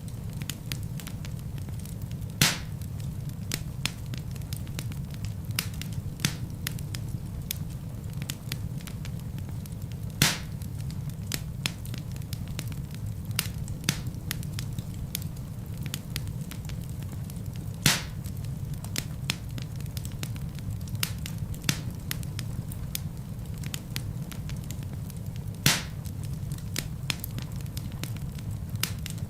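Log fire crackling in a fireplace: a steady low rumble of flames under constant small crackles, with four louder pops of burning wood spaced about eight seconds apart.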